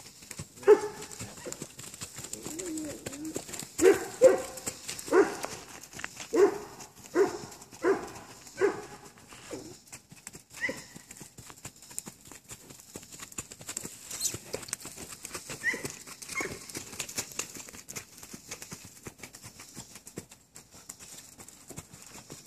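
Hoofbeats of a racking horse on a dirt pen, a steady patter of soft thuds. During the first ten seconds a run of about ten short, loud barking calls, roughly one a second, stands above them, then stops.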